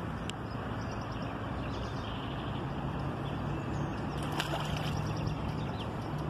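Steady outdoor noise of river water and wind, with a faint low hum underneath and a soft click near the start and another just past the middle.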